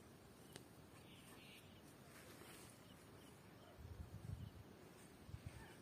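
Near silence: faint outdoor ambience with a faint high chirp repeating about twice a second, and a few low bumps about two-thirds of the way through.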